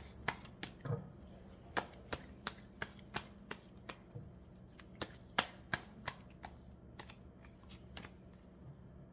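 Tarot cards being shuffled and handled, a run of sharp, irregular card snaps at about three or four a second, as a single advice card is about to be drawn.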